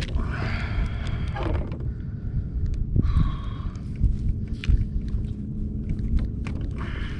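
Steady low rumble of wind on the microphone aboard a kayak, with water splashing twice (about the first second and a half, then about three seconds in) and a few short knocks against the plastic hull.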